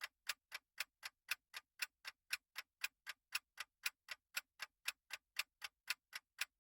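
Countdown timer sound effect ticking like a clock, short sharp clicks at about four a second, evenly spaced and quiet.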